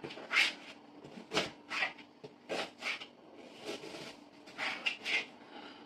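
Kitchen knife cutting an onion on a chopping board: about eight short, separate cuts, spaced irregularly.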